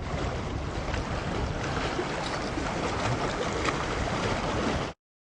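Steady outdoor rushing noise with a heavy, buffeting low rumble, typical of wind blowing across the microphone; it cuts off suddenly near the end.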